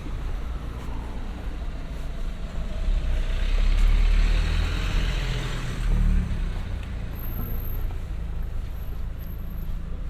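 Street traffic: a steady low rumble of engines, with a car passing close by about four seconds in, its tyre hiss rising and fading away.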